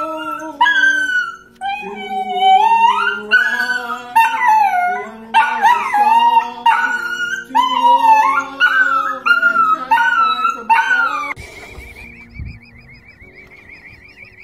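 Small dachshund howling in a run of long, wavering notes that slide up and down, over background music. The howling breaks off near the end.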